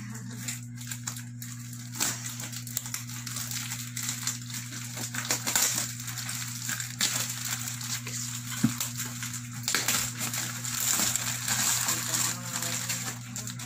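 Gift wrapping paper being torn and crumpled by hand as a wrapped present is opened: irregular crinkling and rustling with small clicks and knocks, over a steady low hum.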